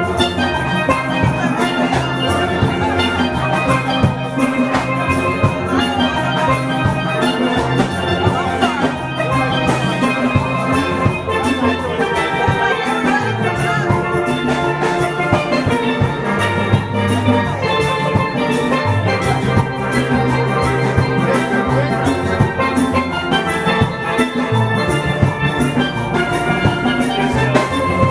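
Instrumental music with drums and a melody of many short, bright notes over a steady bass line.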